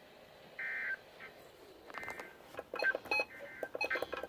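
Emergency Alert System end-of-message bursts from a NOAA Weather Radio broadcast: three short, buzzy two-tone digital data bursts about a second apart, marking the end of the warning. Crackling clicks and other stray tones are mixed in with the second and third bursts.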